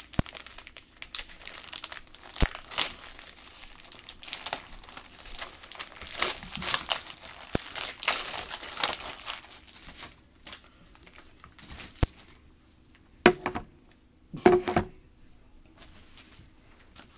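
Clear plastic packaging bag crinkling and tearing as it is pulled open by hand. The crinkling goes on for about ten seconds, then drops away, with two brief louder rustles near the end.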